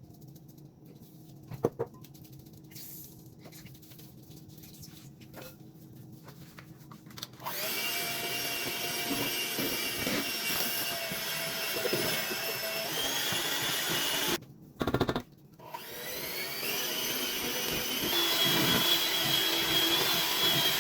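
An electric kitchen mixer starts about a third of the way in and runs steadily with a whine, beating cake batter. It stops briefly, then starts again, speeds up and runs louder near the end. Before it starts there are only a couple of light taps.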